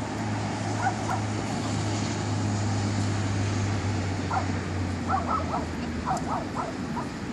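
A dog giving short high yips, two at first and then quick clusters of three or four from about halfway through, over a steady low hum of traffic.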